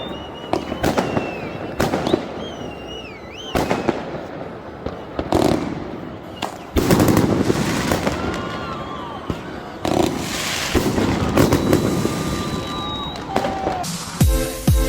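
Fireworks going off: repeated sharp bangs at uneven intervals with crackling after them, and high wavering whistles between bursts. Dance music starts near the end.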